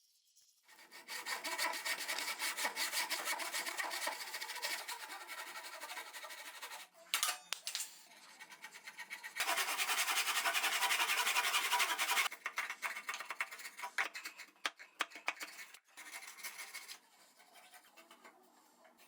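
A hand tool scraping against a softwood 2x4, in two long spells of steady scraping, the second starting about nine and a half seconds in, with lighter scratches between and after.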